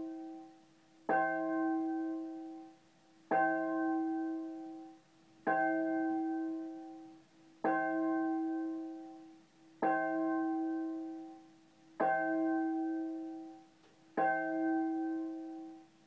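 A single bell tolling at one pitch: seven strokes about two seconds apart, each ringing out and dying away before the next.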